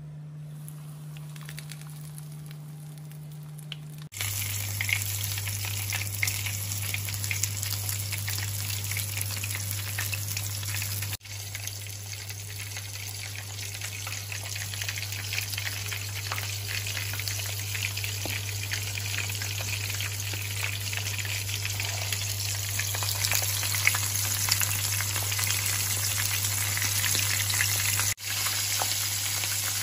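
Coated fish frying in hot oil in a pan: a steady crackling sizzle that starts about four seconds in, with a low steady hum underneath.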